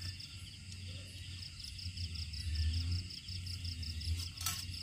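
Crickets chirping in a steady, fast, evenly pulsing high trill over a low rumble, with a short sharp crackle near the end.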